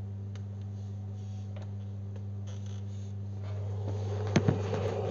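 Steady low electrical hum, with a few faint scattered clicks. Near the end a hiss swells and a couple of sharp clicks sound.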